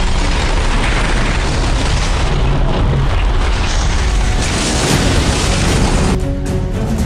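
Cinematic explosion sound effects, a dense continuous blast and rumble layered over dramatic intro music. About six seconds in the blast cuts away, leaving the music with held notes and a clicking beat.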